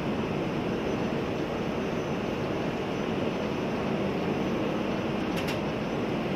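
Steady low roar of distant jet aircraft noise at an airport, with a few faint clicks near the end.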